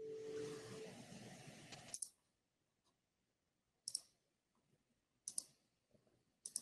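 A faint hiss with a brief low hum in the first second, then four faint, sharp clicks spaced a second or two apart, in near silence.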